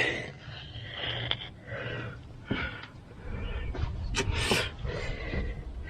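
A person breathing heavily in and out close to the microphone, several breathy exhalations with the strongest about four seconds in, over low wind rumble on the microphone.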